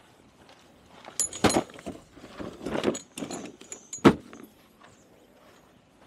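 Metal camp gear being handled and set up: a run of metallic clinks and clatter with a short ringing, then a sharp knock about four seconds in.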